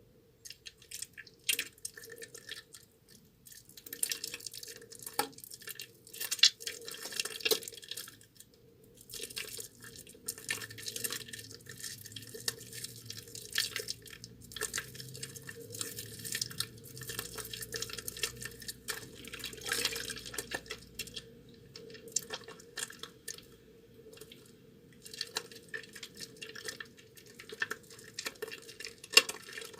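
A soaked bar of soap being lathered with wet hands: wet squishing and crackling of soap and foam, in runs with a few short pauses.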